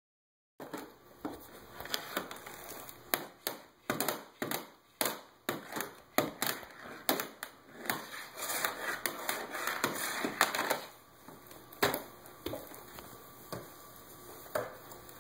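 Plastic DVD cases knocking and clattering as they are pulled off a shelf and dropped onto a wooden floor: a rapid run of sharp knocks, with a stretch of scraping and sliding about nine seconds in, thinning to a few scattered knocks near the end.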